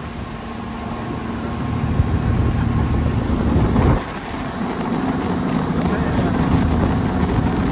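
Engine of a Bangkok canal water-taxi boat running steadily under way: a low drone over a rushing noise. It swells for a few seconds, drops off suddenly about four seconds in, then builds again.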